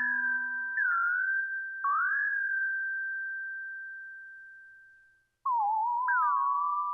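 Electronic music of pure, whistle-like tones that slide up into long held high notes. One note fades away slowly to silence about five seconds in, then new wavering tones begin, one leaping up a step.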